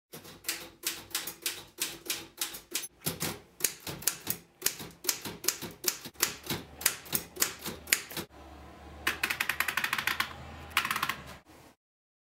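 Vintage manual typewriter being typed on: sharp, uneven keystrokes at about three to four a second. After about eight seconds they give way to a low hum and a fast run of clicks, which stop abruptly near the end.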